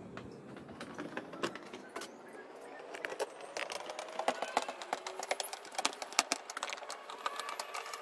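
Hand screwdriver driving screws into the plastic housing of a floor fan: quick clicks and scraping of metal on plastic, coming thicker from about three seconds in.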